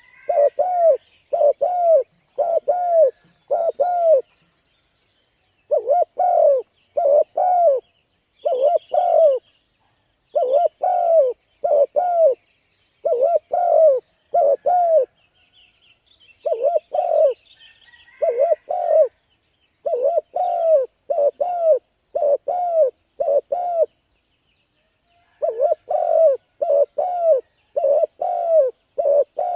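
Spotted dove cooing over and over, each phrase a quick run of two to four short coos, with pauses between phrases. Faint, high chirps of small birds come in at times.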